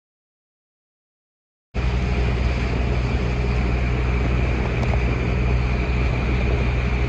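Dead silence, then about two seconds in a boat's engine starts up abruptly on the sound track and runs steadily under a rush of wind and water.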